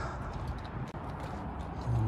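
Footsteps crunching on wet gravel, a few faint scattered steps over a steady low background rumble.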